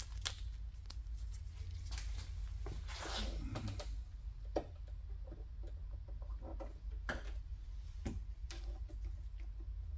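Scattered light clicks, knocks and plastic rustling as suction cups are fitted to a pickup truck's door glass and the plastic vapor barrier is handled, over a low steady hum.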